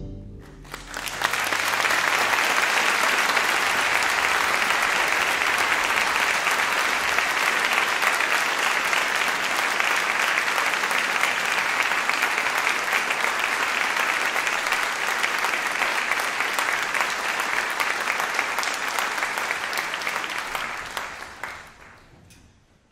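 Audience applauding: clapping swells up about a second in, holds steady, then dies away near the end.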